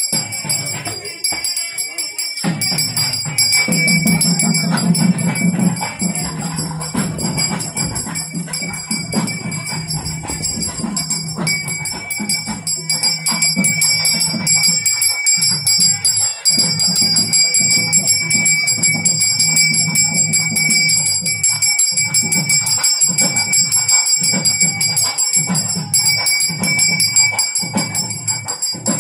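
Temple bell rung continuously, a steady high ringing, joined about two seconds in by a low rhythmic beat, as of drumming, that keeps going underneath.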